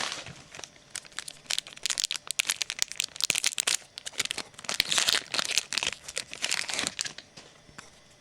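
Foil trading-card pack wrapper being torn open and crinkled by hand, a dense run of irregular crackles and snaps that dies down near the end.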